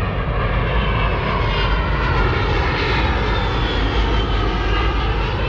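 Low-flying airshow aircraft passing over, its engine noise loud and steady, with a pitch that slowly shifts as it goes by.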